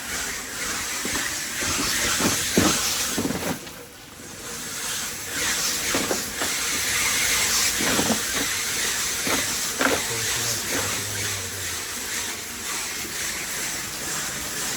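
Ice-crushing machine sending crushed ice into a boat's fish hold: a steady rushing hiss that drops away briefly about three and a half seconds in, with a few knocks mixed in.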